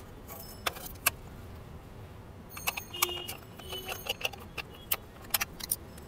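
Sharp plastic clicks and small rattles of a handheld plastic remote control being handled and its battery cover taken off, a dozen or so irregular taps with a few brief high metallic rings among them.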